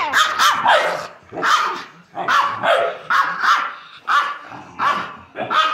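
A small dog barking repeatedly in play: high, sharp barks, roughly one every three-quarters of a second.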